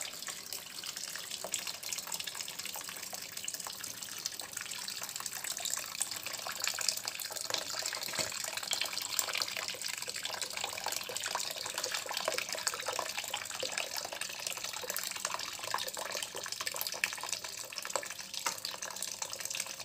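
Kitchen tap running steadily into a plastic basin of water in a stainless-steel sink, with irregular small splashes.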